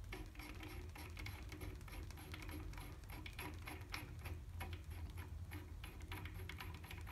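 A brass half-nut sleeve is spun by hand along a steel lathe lead screw, giving faint, irregular light clicks and ticks over a low steady hum. It threads on smoothly with very little play, the sign of a good thread fit.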